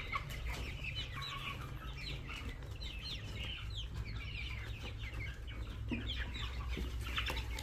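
A flock of chickens clucking and cheeping, many short calls overlapping continuously, over a low steady hum.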